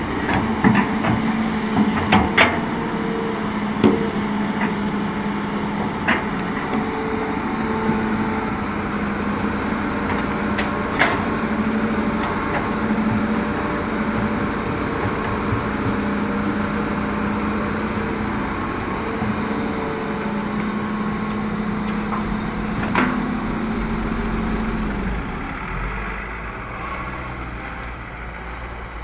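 Hitachi excavator's diesel engine running steadily under working load, with scattered sharp metallic clanks and knocks from the bucket and arm, the loudest in the first few seconds. Near the end the engine note drops away and the sound gets quieter.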